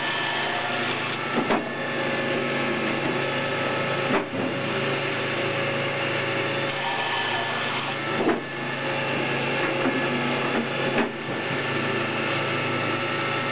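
Electro-hydraulic firewood processor running in full-auto: its 7.5 kW three-phase electric motor and hydraulic pumps hum steadily while the belt-driven chainsaw bar cuts through the log. Four sharp knocks come a few seconds apart as the machine works through its cycle.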